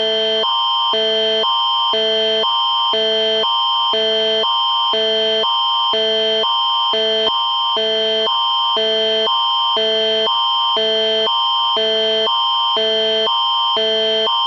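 Electronic emergency alert alarm tone, switching evenly back and forth between a low and a high pitch about twice a second over a constant high whine.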